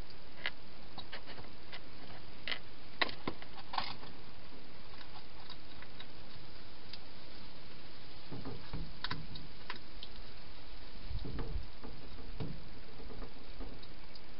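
Hedgehog feeding from bowls inside a plastic feeding box: scattered sharp clicks of eating in the first four seconds and again around nine seconds, and low muffled bumps from about eight to thirteen seconds as it shifts about in the box, over a steady hiss.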